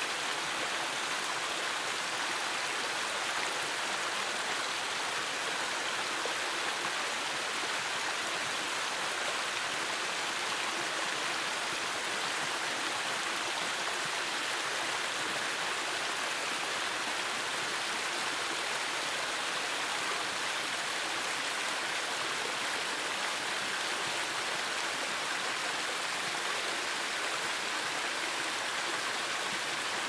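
Small waterfall sliding and splashing over rock slabs into a creek: a steady, even rush of water, bright and hissy with little low rumble.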